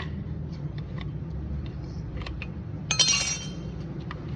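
A sharp metallic clink with a brief high ringing about three seconds in, amid scattered light ticks and clicks of metal parts, over the steady low hum of an engine running.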